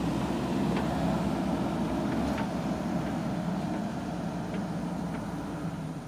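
JCB backhoe loader's diesel engine running steadily as the machine drives away, growing slowly fainter toward the end, with a few faint clicks and clanks.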